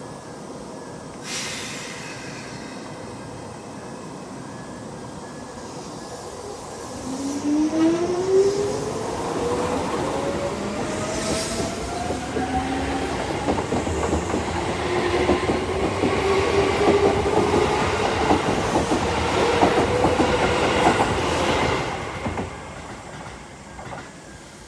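Keisei 3400-series electric train pulling out: a motor whine rises in pitch as it speeds up, then wheels clack over the rail joints as the cars pass. It fades away near the end.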